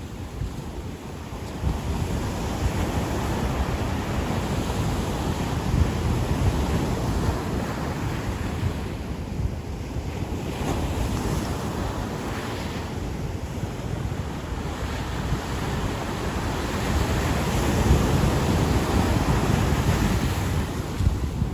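Ocean surf washing onto a beach, a steady rush that swells and eases as waves break and run up the sand, with wind buffeting the microphone.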